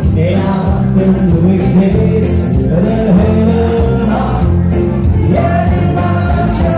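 Loud pop music with a singer's voice over heavy bass, played through a party PA system.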